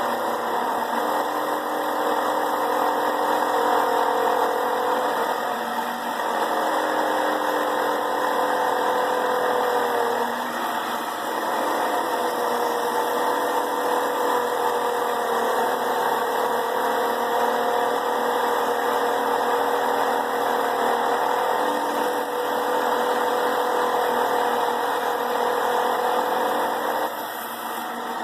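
Rock Rascal Model T 6-inch trim saw running, its diamond blade belt-driven by a juicer motor, slicing through a rhodonite stone. A steady motor-and-blade whine whose pitch wavers slightly, with a few brief dips where the load changes.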